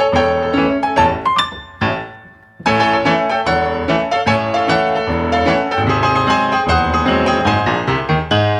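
Background piano music with quick, busy notes. It fades out about two seconds in and starts again half a second later.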